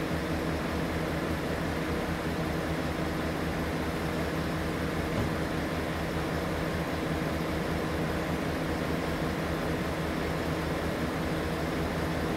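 Dense, unbroken chorus of night insects, heard as an even trilling hiss, over a low steady hum.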